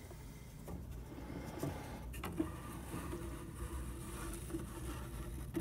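Faint handling noise as a painted gesso board is worked out of a slot in a wooden Guerrilla Painter carrying case: light scrapes of board against wood and a few small knocks. A faint steady hum runs under it in the second half.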